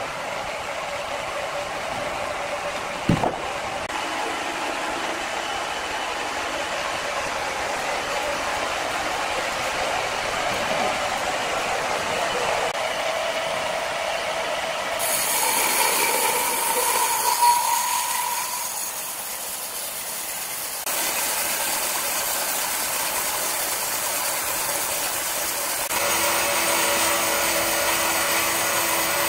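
Horizontal band sawmill running and cutting through a large log, a steady mechanical rattle with a whine from the blade, and one sharp knock about three seconds in. The sound changes suddenly a few times.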